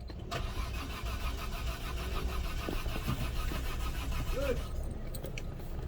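Peugeot 407 V6 being cranked by its starter for about four and a half seconds, an even rhythmic churning that stops suddenly without the engine firing. It is a crank-no-start: the injectors on all six cylinders are getting no pulse.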